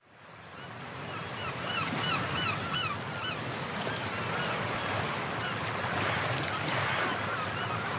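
A bird calling in a quick run of short, repeated notes over a steady rushing noise, such as rain or wind; the sound fades in at the start.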